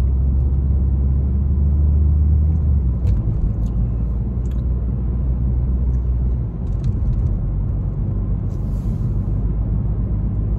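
Steady low rumble of a car heard from inside its cabin, with its pitch shifting a little about halfway through, and a few faint light clicks.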